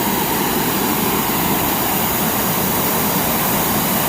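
Waterfall rushing: a steady, loud roar of falling water.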